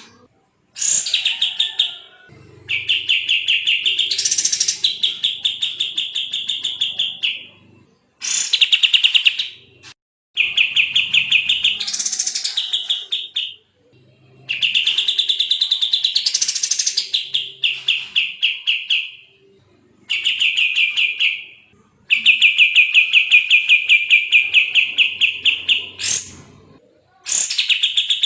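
Kapas tembak bird singing 'gacor speed rapat': a string of very fast, dense trilled phrases, each a second to several seconds long, with brief pauses between them and an occasional upward sweep to a higher note within a phrase.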